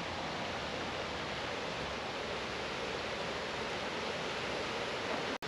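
Shallow, rocky river rushing steadily over rocks and boulders. The sound cuts out for an instant near the end.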